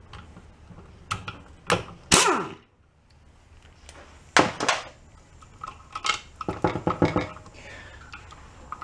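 Irregular metal clanks and knocks as tools and parts are handled on a steel workbench during the teardown of an air compressor pump's crankcase, the loudest about two seconds in and a quick run of knocks near the end.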